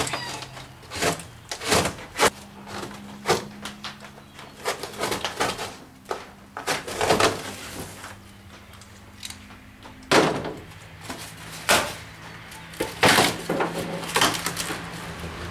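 A box cutter slicing a heavy cardboard shipping box open, the cardboard being pulled apart: a series of short rasping rips and sharp knocks at irregular intervals.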